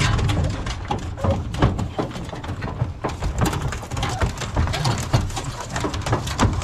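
Knocks and rattles of a truck-bed dog box being worked open by hand to let beagles out, with the dogs' voices mixed in.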